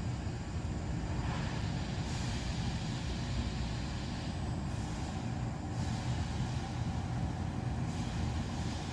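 Top-lit gasifying wood stove burning, with a steady low rumble from the firebox during secondary gas combustion. A fainter hiss swells and fades a few times, about a second in, near the middle and near the end.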